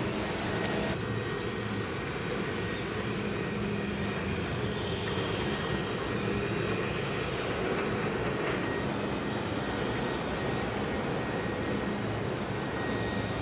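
Steady low engine drone heard from afar, with a few faint high chirps about a second in.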